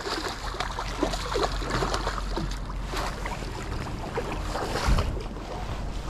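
Water splashing as a hooked rainbow trout thrashes at the surface and is scooped up in a landing net and lifted aboard a boat, over wind on the microphone. A thump sounds about five seconds in.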